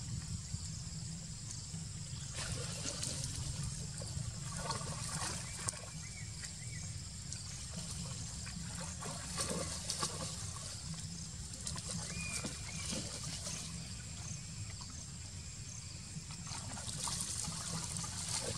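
Water splashing and trickling in short spells as a monkey moves through and feeds in shallow muddy water, over a steady low rumble.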